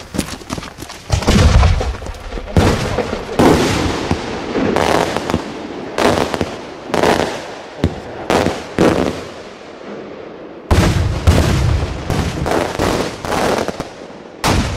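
Multi-salute fireworks cylinder shells going off: a deep boom about a second in, then a string of sharp, loud bangs about half a second to a second apart. A second deep boom near the end of the first string is followed by another run of bangs, all echoing.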